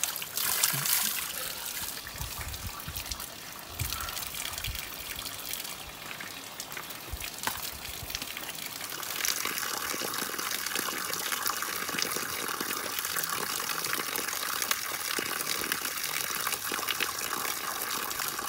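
Water gushing from a pipe and splashing onto rock, turning louder and steadier about halfway through.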